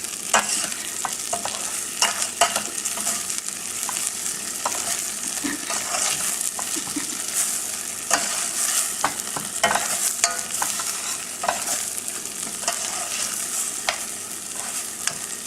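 Basmati rice frying in butter in a pan, with a steady sizzle and frequent scrapes and clicks of a spoon stirring the grains; the rice is still damp from washing, its water cooking off.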